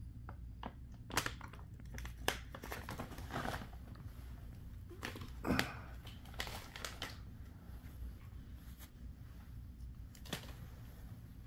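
Plastic-lined dog-treat pouch crinkling as it is handled, in irregular crackles and sharp clicks that are busiest in the first seven seconds or so and then thin out.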